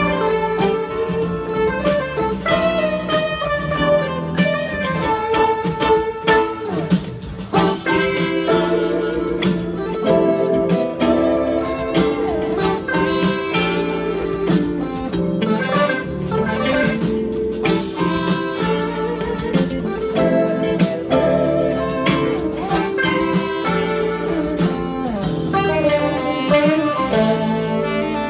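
Guitar music with a bluesy feel: a run of plucked notes that change often, with a few sliding pitches.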